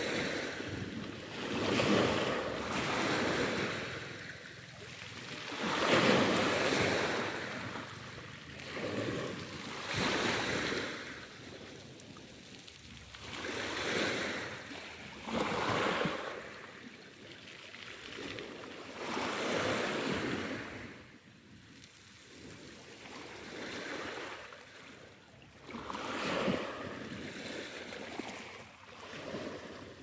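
Sea waves washing onto a beach, each wash of surf swelling and fading every few seconds.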